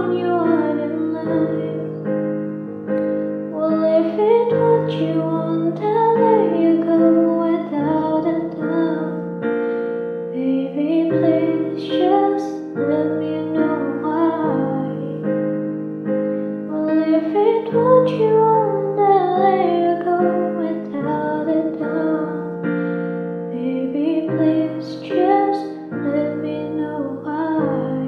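A woman singing a slow pop ballad over piano chords, her voice gliding through long held notes.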